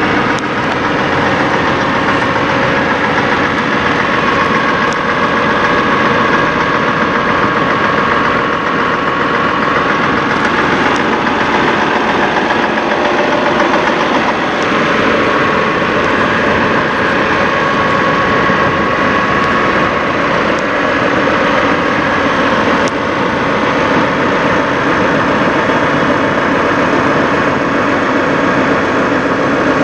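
Heavy diesel semi-truck engine idling steadily, an even drone that holds the same pitch throughout.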